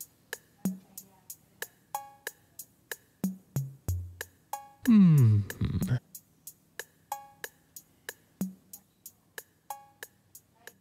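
Background music with a steady beat of light ticks and low drum hits; about five seconds in, a loud sweep glides down in pitch for about a second.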